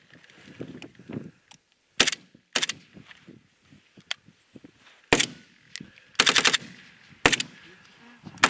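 AK-pattern assault rifles fired at close range in single shots and short bursts, irregularly spaced a second or more apart, with the longest burst about six seconds in.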